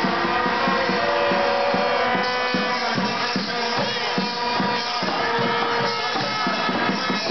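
Stadium crowd at a 2010 World Cup match: a dense, unbroken drone of many vuvuzelas blown at different pitches, over drums beating about three times a second.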